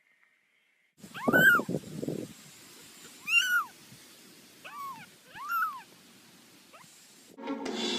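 A cat meowing four times, each meow a short call that rises and falls in pitch; the first is the loudest. Music starts near the end.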